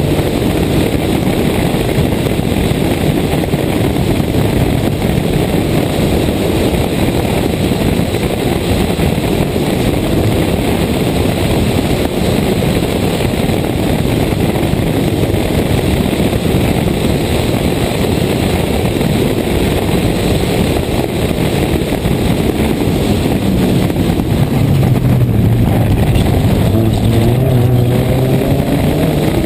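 Toyota Corolla 1.6 rally car's four-cylinder engine running hard under load, heard from the outside of the car with heavy wind rush over the microphone. Near the end the engine note drops and then climbs again as the car slows for a bend and accelerates away.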